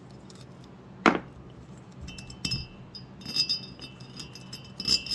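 Small machine screws and a thin sheet-metal template clinking against a chainsaw cylinder as the screws are taken out by hand. There is one sharp knock about a second in, then several bright, ringing metal clinks.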